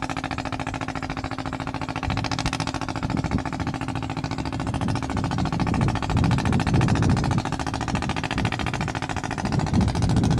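Engine of a wooden sand-laden river boat chugging in a rapid, even beat as it motors along. The chug grows a little louder and heavier from about two seconds in.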